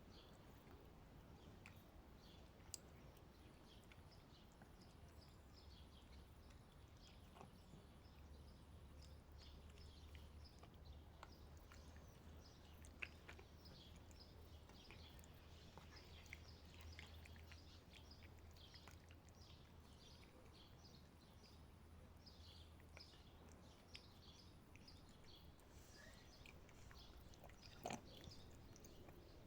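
A cat chewing its food, heard as faint, irregular little crunches and clicks, with a few sharper ones, over a low steady rumble.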